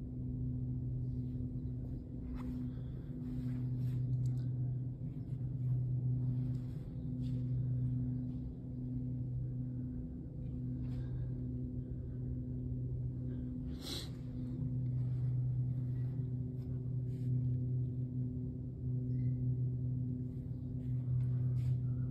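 Low, gong-like droning hum: a few steady low tones that swell and ease every second or two without stopping. A single sharp click comes about fourteen seconds in.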